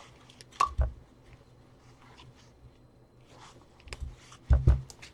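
A few short, sharp clicks and knocks from hands working with small plastic parts and tools: a pair under a second in, then a louder cluster around four seconds in.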